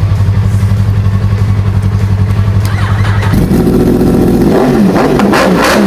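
Motorcycle engine idling steadily, then revved in several quick rising-and-falling blips from about three and a half seconds in.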